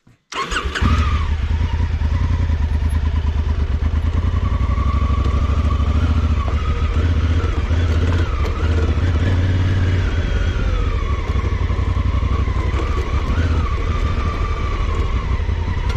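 Honda CRF1000L Africa Twin's parallel-twin engine running steadily as the motorcycle is ridden, starting abruptly about half a second in.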